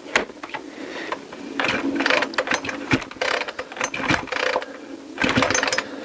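Recoil starter of an Oregon petrol chainsaw pulled several times in a row, the cord and starter pawls ratcheting as the two-stroke engine turns over without catching. The owner suspects the engine is flooded: its spark plug is wet with petrol and not firing.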